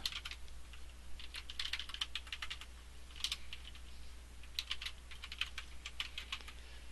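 Computer keyboard being typed on: irregular runs of keystrokes with short pauses between them, over a steady low hum.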